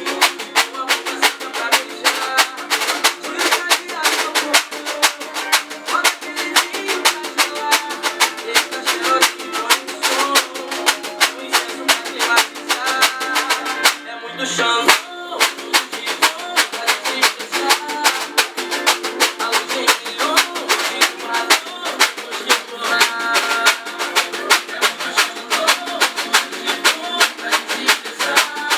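A pagode song with a singing voice, played along on a reco-reco scraper in a fast, even rhythm of scrapes. The music breaks off for about a second around the middle.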